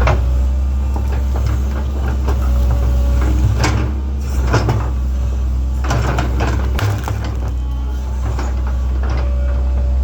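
Link-Belt 2700 excavator's diesel engine running steadily, with repeated scrapes and knocks of the bucket working dirt and stone, heaviest in the middle.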